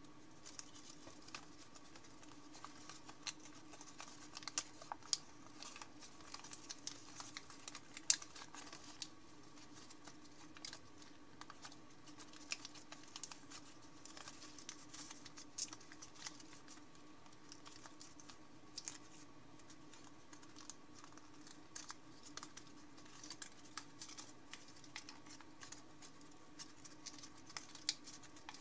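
Thin 50 g origami paper being folded and creased by fingers: irregular soft crinkles and light clicks, over a faint steady hum.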